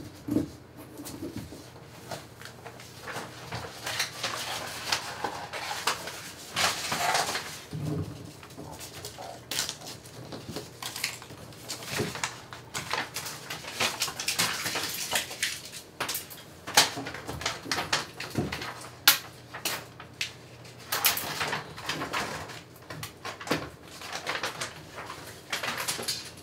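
Paper rustling with irregular small clicks and knocks as sheets are pulled off a corkboard, over a low steady hum.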